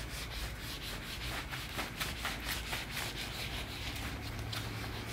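Handheld whiteboard duster wiping marker off a whiteboard in quick back-and-forth strokes: a rapid series of rubbing swishes, about three or four a second.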